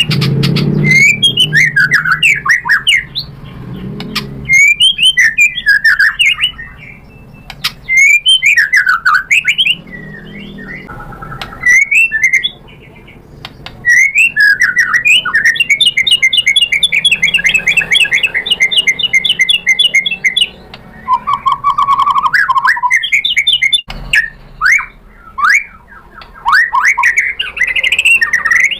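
White-rumped shama (murai batu) singing loud, varied phrases of whistles and chatters in bursts with short pauses, including a long rapid trill in the middle.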